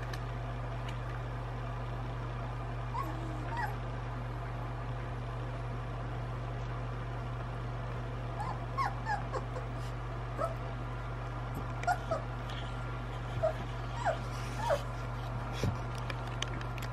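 Young puppies whimpering and squeaking in short high cries, a few early on and more often in the second half, over a steady low hum.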